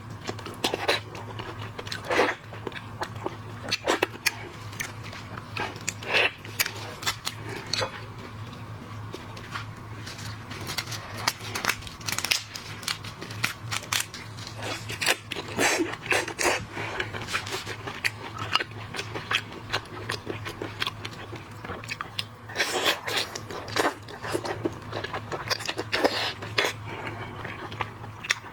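Close-miked eating of seafood: chewing and biting, with many irregular sharp clicks and crunches, over a steady low hum.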